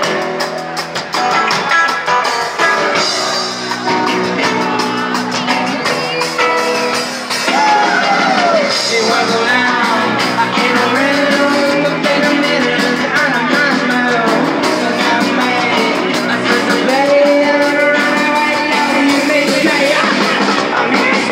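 Live rock band playing loud surf-garage rock on electric guitar, bass guitar and drum kit.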